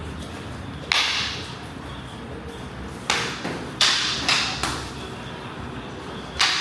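Sparring sticks striking during Kali/Arnis stick sparring: sharp cracks with a short ring after each, one about a second in, a quick run of five between three and five seconds in, and one more near the end.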